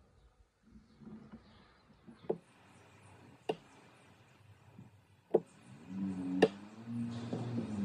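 Quiet room with four sharp clicks at uneven intervals, the last two the loudest, then a low steady hum that starts about six seconds in.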